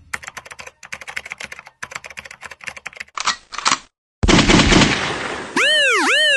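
Edited intro sound effects: several runs of rapid, irregular clicking, then a burst of noise just after four seconds. Near the end comes a loud pitched tone that sweeps up and down about twice a second.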